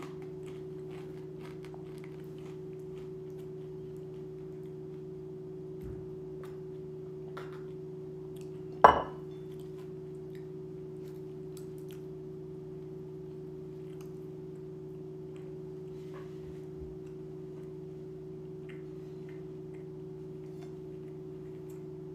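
A man eating a sandwich: faint chewing and mouth clicks over a steady low hum, with one sharp knock about nine seconds in.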